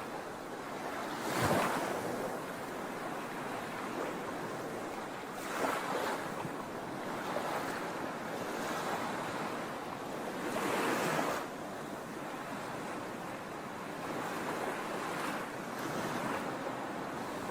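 Sea waves washing on a shore: a continuous surf hiss with waves breaking and surging in every few seconds, the longest surge around the middle.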